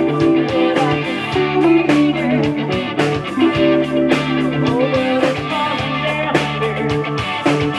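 Music led by electric guitar, with a drum kit keeping a steady beat.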